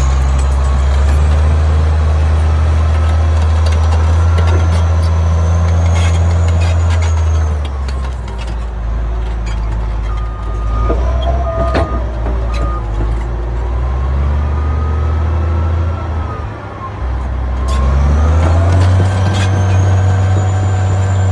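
Caterpillar D10T bulldozer's twelve-cylinder C27 diesel working hard under load while the rear ripper shank tears through the ground, with a high whine rising and falling over the engine and scattered track clanks. The engine note eases about two-thirds of the way in, then builds again near the end. There are three short beeps around the middle.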